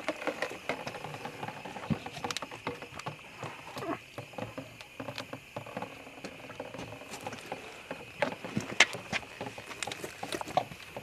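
Irregular small clicks, taps and rustles of hands and a knife working on a deer carcass being opened up, over a steady faint high-pitched drone. The sharpest tick comes late on.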